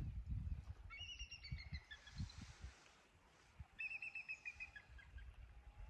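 A small songbird singing two short phrases of quick notes that step down in pitch, about a second in and again near four seconds, over faint low rumbling.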